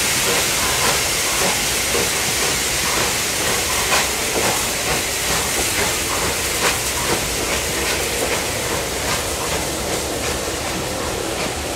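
Bulleid Battle of Britain class steam locomotive 34067 Tangmere moving slowly off with a loaded train, a loud, steady hiss of steam escaping around its wheels and cylinders, with scattered clicks from the train rolling over the track. The hiss eases a little near the end as the train draws away.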